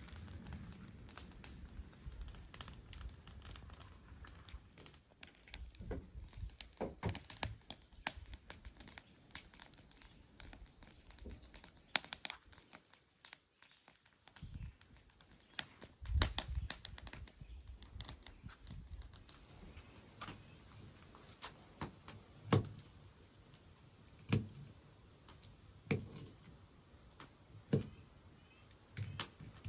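Footsteps crunching through leaf litter and twigs, then, in the last few seconds, a knife slicing sausage and knocking on a plastic cutting board, one sharp knock about every two seconds.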